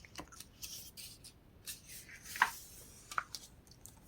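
Faint handling sounds of a book's paper pages: scattered soft rustles and small clicks, the clearest about two and a half seconds in.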